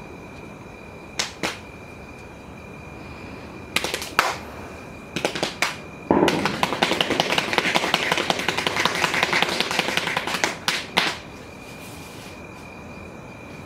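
Sharp percussive smacks, first in pairs and short clusters, then a dense run of rapid clattering strikes lasting about four seconds, which stops about eleven seconds in. A faint steady high whine runs beneath the quiet stretches.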